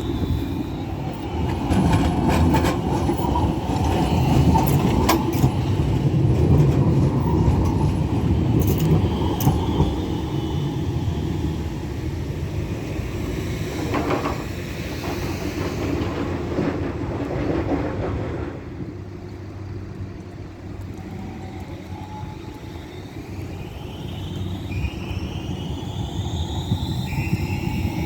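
A tram running on street rails: a steady rumble with clicks over the rail joints, dropping off about two-thirds through. Near the end a high, gliding wheel squeal rises, typical of a tram taking a curve.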